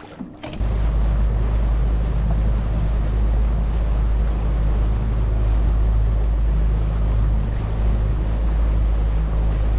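Heavy wind rush on the microphone over the steady drone of a boat motor, as the boat runs along under way. It starts abruptly about half a second in.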